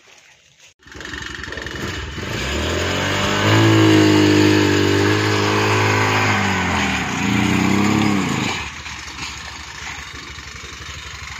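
Petrol engine of a loaded motorcycle-based three-wheeled cargo cart revving hard under the weight of a firewood load: the pitch climbs and holds, eases off, rises again briefly, then settles back to a lower steady running.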